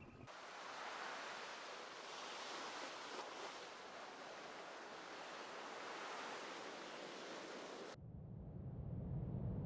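A steady hissing noise that cuts off suddenly about eight seconds in and gives way to a low rumble.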